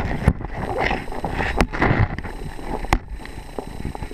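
Pond water sloshing around a camera held under the surface, with handling rumble and a few sharp knocks.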